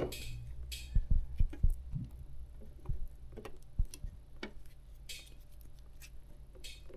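Small handling noises from hands working snips, electroluminescent wire and a plastic hat brim: scattered light clicks and soft knocks, mostly in the first few seconds, with a few brief rustles.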